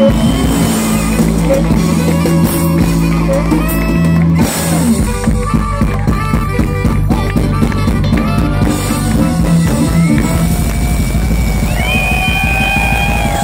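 Live funk-rock band playing loudly: electric guitar, bass, drum kit and saxophone. Held horn-like notes sound over the bass, and the drums settle into a steady beat about five seconds in.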